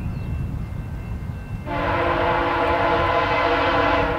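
Passenger train horn on a VIA Rail F40PH-2 diesel locomotive, sounding one long, loud, chord-like blast as the train approaches at speed. The horn comes in about a second and a half in and holds steady to the end.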